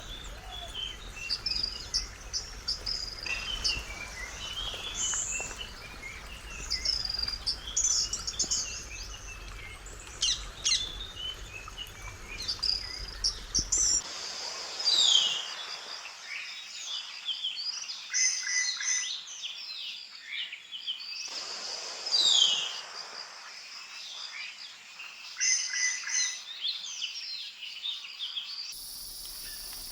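Several forest birds singing and calling, with many short chirps and trills over a low rumble. About halfway through, a change to louder repeated calls, including falling whistled notes, and near the end a steady insect trill takes over.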